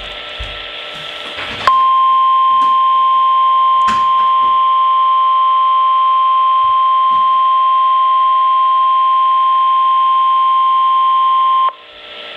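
NOAA Weather Radio warning alarm tone: a single steady 1050 Hz tone held for about ten seconds, starting sharply after a second or two of weaker radio sound and cutting off suddenly. It signals that a warning, here a flood warning, is about to be read.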